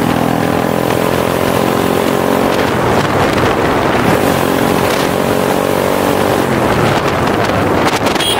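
Motorcycle engine running steadily at speed, with wind buffeting the microphone; the engine note fades under the wind for a stretch in the middle and again near the end.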